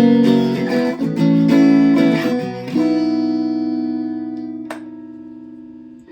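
Kramer electric guitar played through a Boss Katana Mini amp on a clean setting, pickup selector in the second position. Several strummed chords, then a final chord left to ring and slowly fade out.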